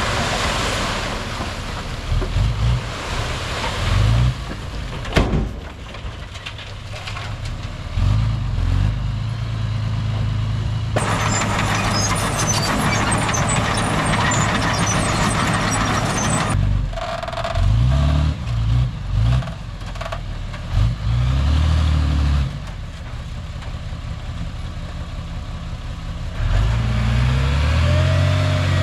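Heavy diesel engines of earthmoving machines running under load, revving up and down several times. A hiss lasting about five seconds comes midway.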